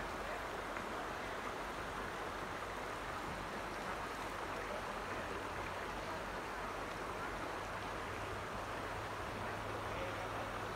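Creek water running steadily over a shallow gravel bed.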